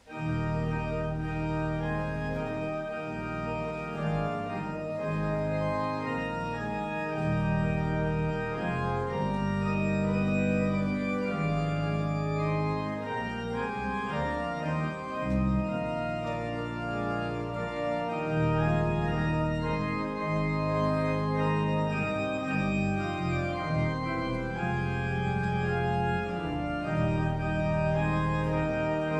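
Church organ playing slow, sustained chords over held bass notes, starting suddenly out of near silence.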